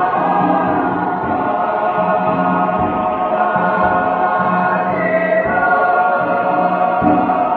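Church youth choir singing in several parts, holding long chords whose upper line moves to new notes a few times.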